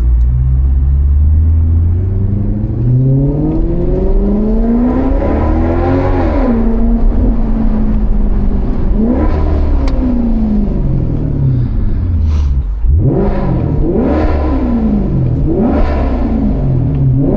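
Maserati GranCabrio's Ferrari-derived 4.7-litre V8 accelerating hard through the gears. Revs climb in a long first pull, then drop back at each upshift and climb again in several shorter pulls.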